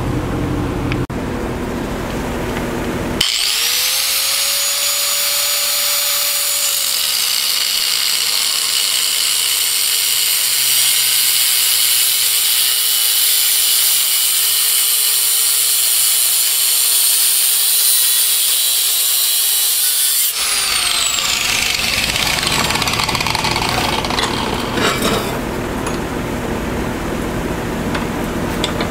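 Angle grinder with a cut-off disc spinning up with a rising whine about three seconds in, then cutting through a metal exhaust pipe in a steady high-pitched grind for about seventeen seconds before winding down. A duller steady noise follows.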